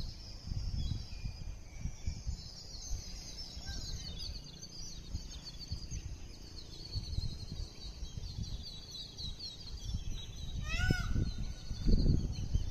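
Many small birds chirping in a continuous chorus over a low rumble on the microphone, with one short, loud, ringing bird call about eleven seconds in.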